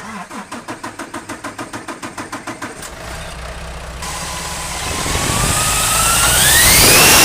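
Truck diesel engine, turbo compressor housing removed, cranking on the starter at about five pulses a second, catching about three seconds in and revving up. As it revs, a high whine rises steadily in pitch toward the end: the turbo whine persisting, which the mechanic puts down to a slight touch at a contact point in the turbo causing the squeal.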